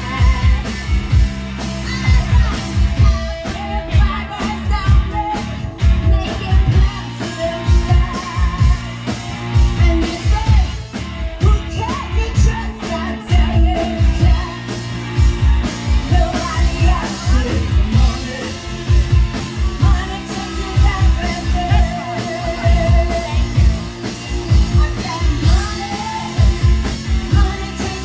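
Live rock band playing a song with a steady drum beat, guitars and a lead vocal, heard through a phone's microphone in the crowd.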